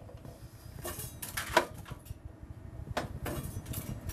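Scattered metal knocks and light scraping at a hard drive destroyer's chute as debris is cleared out with its cleaning tool, over a low steady hum.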